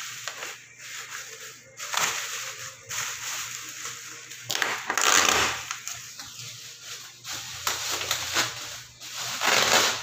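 Plastic bubble wrap crinkling and rustling as it is pulled and peeled off a cardboard box, in irregular bursts, loudest about five seconds in and again near the end.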